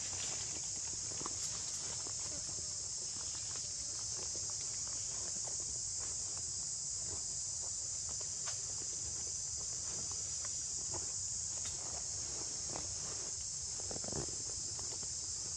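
A steady high-pitched insect chorus drones throughout, with faint scattered clicks and ticks over it.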